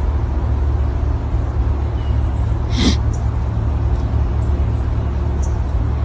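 A deer buck gives one short, sharp snort about three seconds in, over a steady low rumble.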